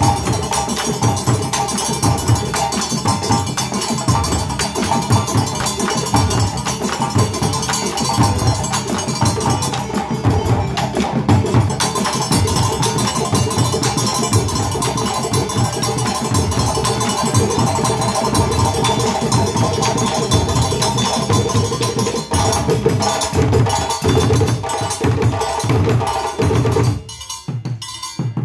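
West African drum ensemble of djembe hand drums and bass drums playing a fast, dense, interlocking rhythm. Near the end the playing breaks off to a few scattered strikes.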